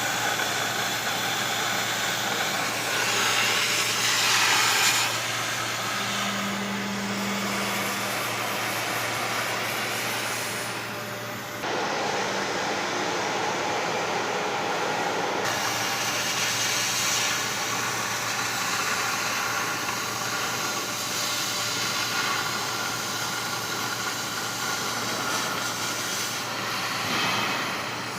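CNC machine running: a steady mechanical hum under a hissing noise, with the sound changing abruptly twice near the middle.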